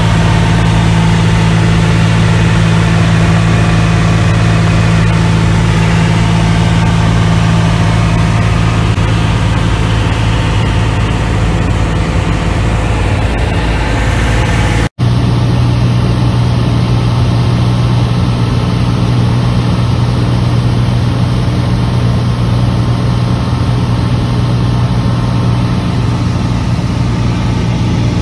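Piper Saratoga's six-cylinder piston engine and propeller droning steadily, heard from inside the cabin. The drone cuts out for an instant about halfway through, then carries on unchanged.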